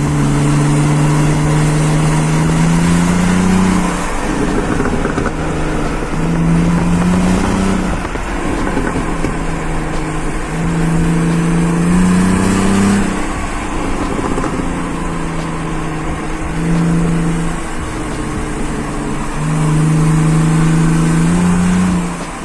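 BMW E46 320Ci's straight-six engine revved through its exhaust about five times, each rev rising and holding for one to a few seconds before dropping back toward idle.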